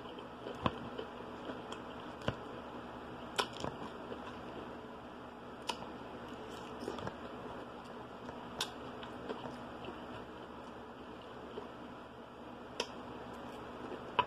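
A person chewing a mouthful of salad with the mouth closed: scattered soft, short mouth clicks and smacks every second or two over a steady background hiss.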